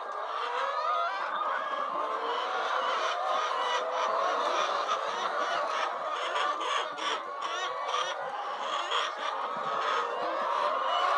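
A flock of chickens clucking and calling, many birds at once in a steady overlapping chorus.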